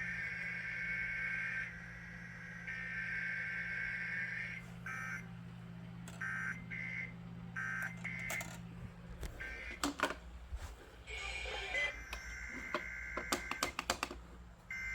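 Emergency Alert System digital data tones (the SAME header bursts): two bursts of about two seconds each, then a run of short bursts, then a burst of sharp crackling clicks from about nine seconds in, with the tones returning near the end.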